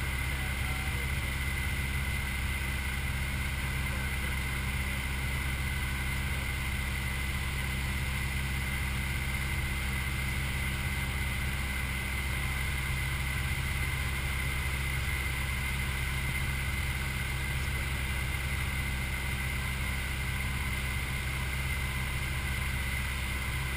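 Steady drone of a single-engine light aircraft's piston engine and propeller in flight, heard inside the cabin, holding an even pitch and level throughout.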